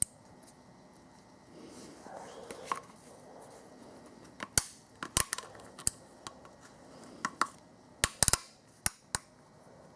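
Needle-nose pliers squeezing and releasing a steel spring hose clamp as it is worked onto a rubber coolant hose: scattered sharp metal clicks, a handful about halfway through and a quick cluster near the end, with soft handling noise in between.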